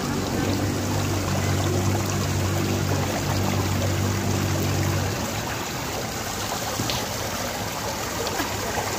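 Water cascading down the face of a stone-clad wall fountain and splashing into its trough, a steady rushing trickle. A steady low hum runs underneath and stops about five seconds in.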